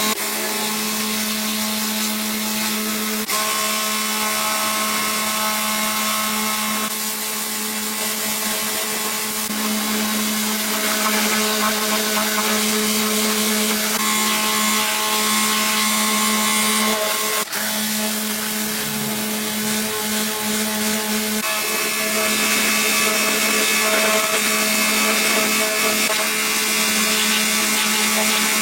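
Handheld electric power tool running continuously with a steady hum and hiss, its tone shifting a few times.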